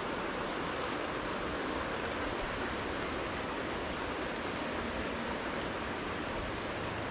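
River current running steadily over a rocky streambed: an even, unbroken rush of water.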